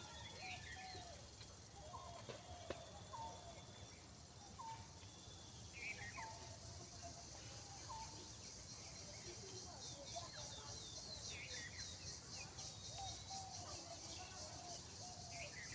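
Birds calling, short chirping notes repeated about once a second, over a steady high-pitched insect buzz.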